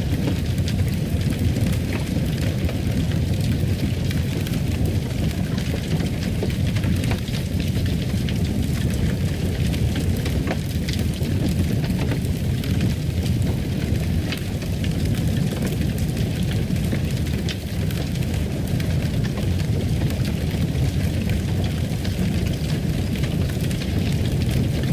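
Fireplace burning: a steady low rumble of the flames with scattered small crackles and pops from the wood throughout.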